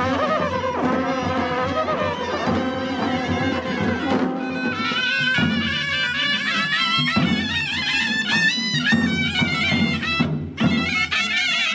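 Himachali folk band music: shehnai-type reed pipes playing a melody over dhol drums. About four seconds in, the melody shifts higher and brighter.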